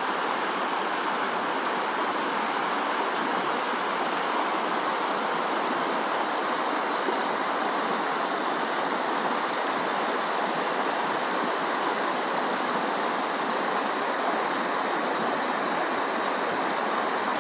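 Mountain stream running, a steady, even rush of water.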